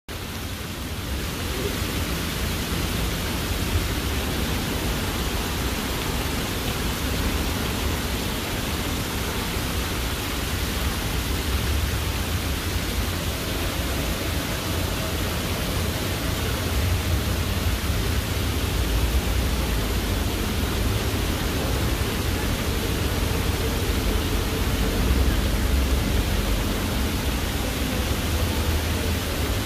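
Water cascading down the stone wall of an ornamental sign fountain, a steady even splashing with a low rumble underneath.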